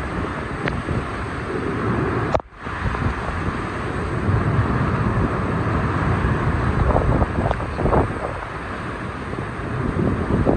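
Hurricane-force wind gusting against the microphone with torrential wind-driven rain, a heavy rumbling rush of noise that swells and eases with the gusts. The sound drops out for a moment about two and a half seconds in.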